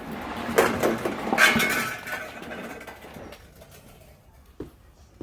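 Loose mineral sediment rattling and sliding around inside an old gas water heater tank as the tank is moved, a gritty clinking rush that is loudest in the first two seconds and then dies away, with a couple of single knocks near the end. The sound is the sign of heavy scale buildup in the tank.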